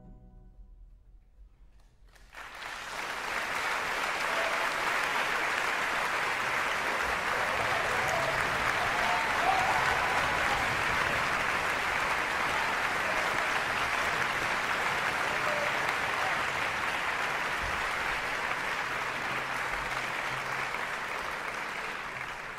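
After a brief hush following the orchestra's final note, a concert-hall audience breaks into applause about two seconds in, loud and steady, with a few voices calling out in it; it begins to fade near the end.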